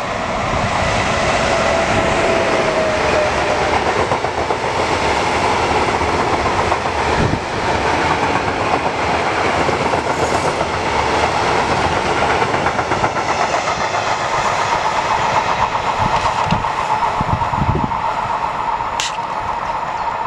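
Freight train of tank wagons rolling past close by, hauled by a DB class 185 electric locomotive that goes by at the start: loud, steady wheel-on-rail running noise with a steady high tone running through it.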